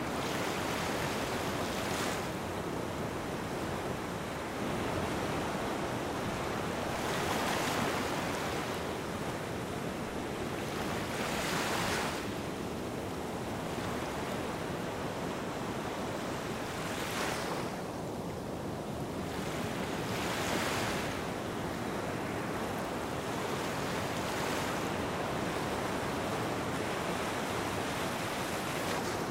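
Small waves washing onto a sandy beach: a steady hiss of surf that swells into a wash about every four to five seconds.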